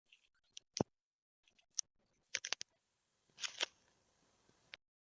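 A few faint, scattered clicks and ticks over a light hiss, one of them a small cluster of quick clicks, then the sound cuts off to silence near the end.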